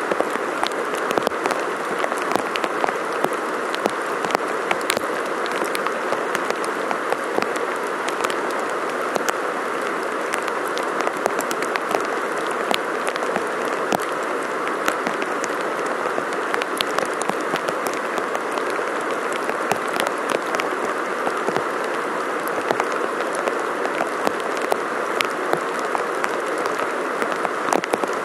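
Flooded creek running fast over rapids, a steady rush of water, with rain falling and many sharp drop ticks close to the microphone.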